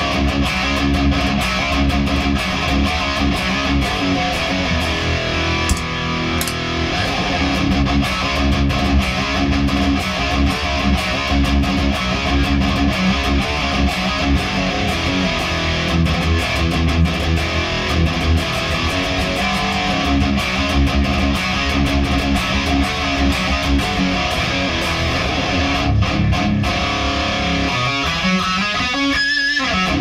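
Distorted electric guitar riffing through a Victory Super Kraken amp, with a presence and resonance pedal in its effects loop, into a ported Ward Giant Gnome 2x12 cabinet loaded with a Celestion Creamback and a Jensen Raptor 100. It is picked up by a room mic, not close-miked.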